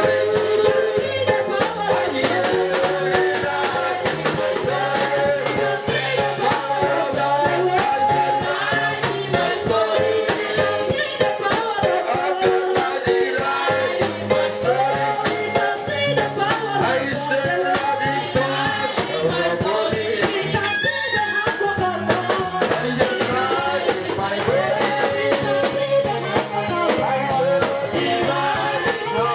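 Live gospel worship music with singing over drums and shaken percussion, a steady beat throughout.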